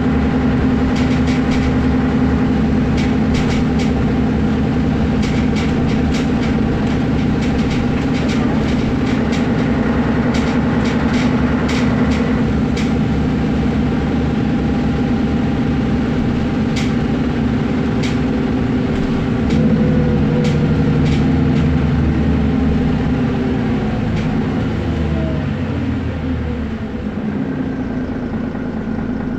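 Mercedes-Benz Citaro O530G articulated bus under way, its diesel engine drone steady, with clicks and rattles in the first half. About 20 seconds in the engine note changes and a falling whine follows, and the sound eases off near the end.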